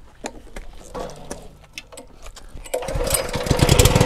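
A few light clicks and knocks of handling, then a Honda GX200 single-cylinder engine on a pressure washer starts on one pull of the recoil starter, cold with the choke fully on and about a third throttle. It catches near the end and settles at once into a steady run.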